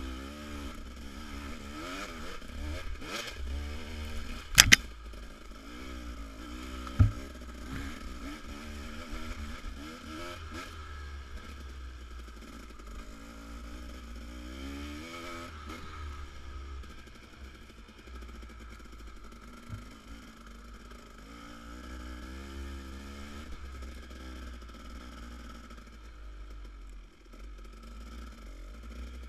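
Dirt bike engine under way, its pitch rising and falling as the throttle opens and closes, over a heavy low rumble. Two sharp knocks stand out, about five and seven seconds in.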